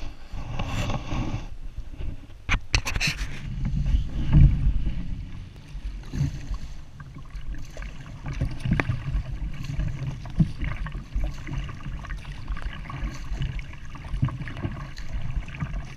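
Kayak paddle strokes dipping and splashing in calm water, over a low rumble of wind on the microphone, with a couple of sharp knocks about two to three seconds in.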